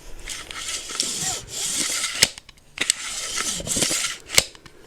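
Close-miked rubbing or scraping against the microphone, in two long strokes, each ending in a sharp click.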